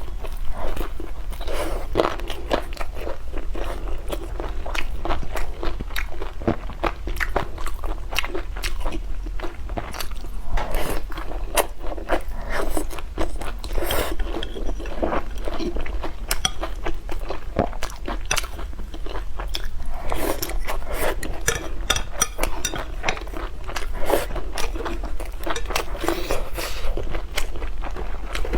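A person biting and chewing food close to the microphone, with many short, sharp, irregular clicks.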